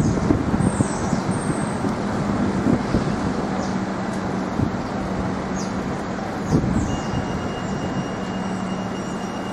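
Steady city street traffic noise: vehicles running past with a continuous low engine hum and a few short high chirps over it.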